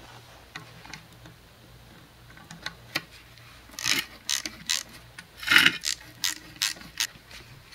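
A ratcheting hand tool clicking as a worm-drive hose clamp on a Subaru WRX intercooler pipe is loosened. The clicks begin about three seconds in and come in short runs, a few a second, with the loudest near the middle.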